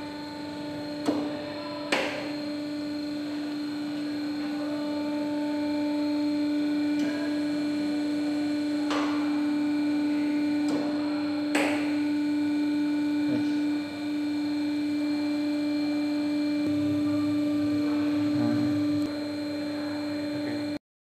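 Hydraulic power unit's electric motor and pump running with a steady whine while the system holds pressure, stopping near the end. A few sharp clicks sound over it, the first two about a second apart early on and two more around the middle.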